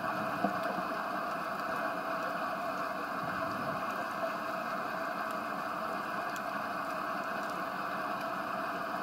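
Underwater ambience heard through the camera: a steady, muffled hiss with a couple of faint clicks, one about half a second in and another about four seconds in.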